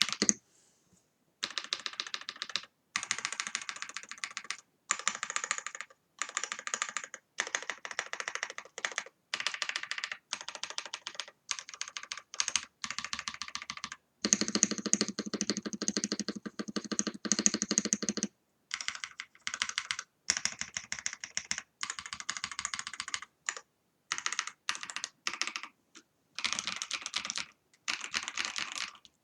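Typing on a Rama Kara mechanical keyboard with lubed switches and a PCB tape-modded with masking tape, in fast bursts of keystrokes broken by short pauses. During one longer run near the middle the strokes sound fuller and deeper.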